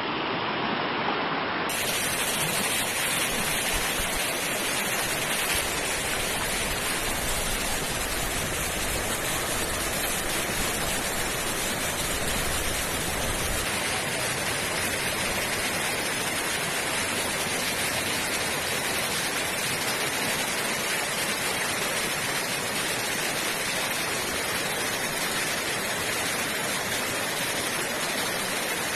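Steady rush of a fast-flowing river, an even unbroken hiss of running water, with some added low rumble for several seconds in the middle.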